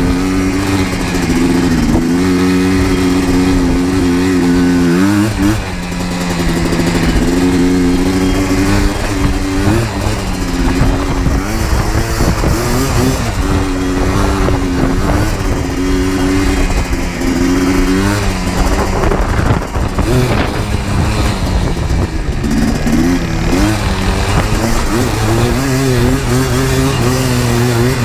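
Yamaha Blaster 200's single-cylinder two-stroke engine running under way, its pitch rising and falling with the throttle, with a brief drop in revs about five seconds in and again around twenty seconds.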